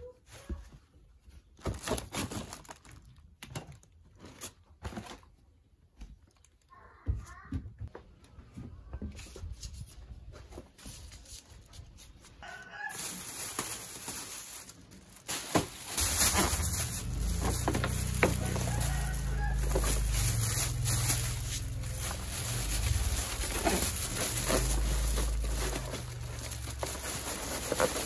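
Chickens clucking and a rooster crowing in the background, over knocks and clicks of household things being moved. About halfway through a low rumble sets in and stays.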